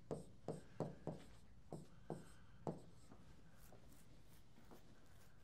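Writing on the glass of a touchscreen whiteboard: about seven sharp taps in the first three seconds as each stroke touches the screen, then a few fainter ones.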